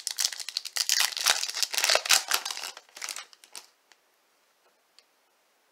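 A 2020 Topps Chrome Formula 1 card pack's wrapper crinkling and tearing as it is opened: a dense crackle for about three and a half seconds, then a couple of faint ticks.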